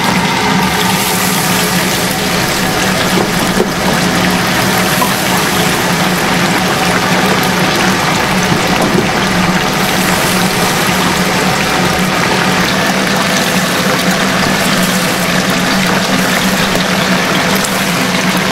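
Battered whole chickens deep-frying in a commercial fryer: the hot oil bubbles and sizzles in a loud, steady hiss. A steady low hum runs underneath.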